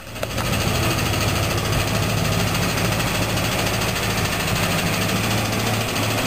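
Old Plymouth V8 idling steadily after a light rebuild, with a ticking noise in its running that the owner thinks comes from the oil pan.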